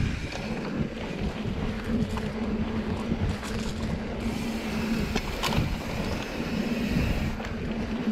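Mountain bike rolling fast down dirt singletrack: the knobby tyres run on the dirt with a steady hum, and the bike rattles and knocks over bumps, with wind on the microphone.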